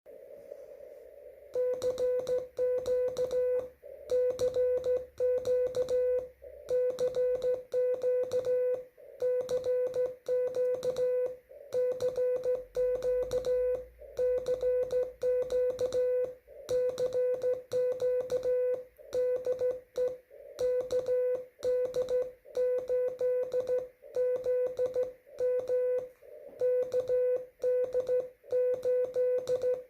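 Morse code (CW) from an amateur radio transceiver: a steady tone of about 500 Hz keyed on and off in dots and dashes at slow speed. About a second and a half in, it starts after a short stretch of hiss.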